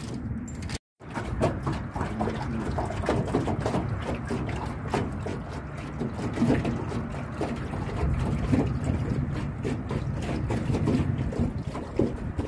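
Water splashing and lapping against the hull of a small fishing boat as it moves across a pond, an uneven run of small splashes over a steady wash. The audio drops out for a moment about a second in.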